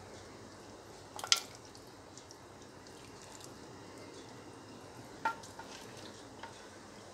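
A ladle scooping thick mutton curry out of a clay pot and spooning it into a ceramic serving dish, with soft wet sounds of the gravy. The ladle clinks sharply against the vessels twice, the louder about a second in and again about five seconds in, each with a brief ring.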